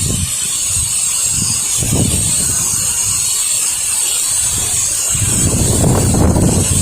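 Pressure washer rinsing, the water spray giving a steady high hiss, while gusty wind rumbles and buffets on the microphone, heaviest in the last couple of seconds.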